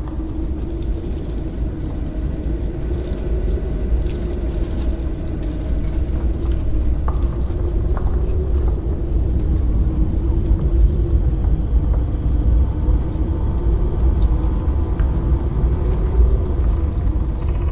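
Haunted-house ambience sound effect: a steady deep rumble under a low drone that slowly wavers up and down, with a few faint clicks scattered through it.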